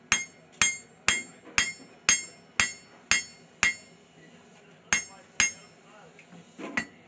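Hand hammer striking a red-hot steel knife blade on an anvil, each blow with a bright metallic ring. About two blows a second for eight blows, then a short pause and two more.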